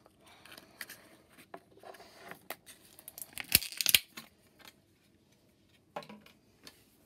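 Advent-calendar packaging being handled and torn open by hand: scratchy rustling and sharp little clicks, with a loud bout of tearing about three and a half seconds in, then a quieter stretch and a few more clicks near the end.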